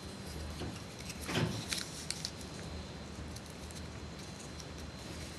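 Sheet of printing paper being handled and folded, with a few brief rustles and crinkles; the loudest rustle comes about a second and a half in.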